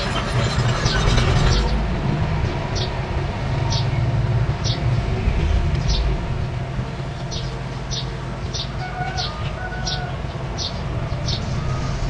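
Mini crawler bulldozer's diesel engine running with a steady low rumble as it pushes soil, with short high squeaks repeating about once or twice a second.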